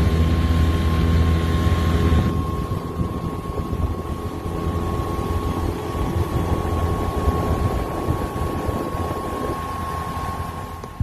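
Small boat's outboard motor running at speed, with a steady high whine over its low drone and water and wind rushing past; the hiss thins out about two seconds in.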